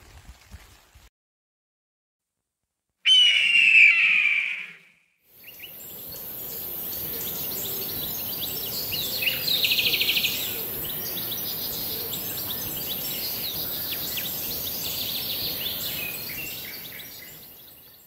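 Several birds chirping and singing at once in many short, quick notes, after a single short, loud call about three seconds in. A steady high hiss runs under the birdsong, which fades out near the end.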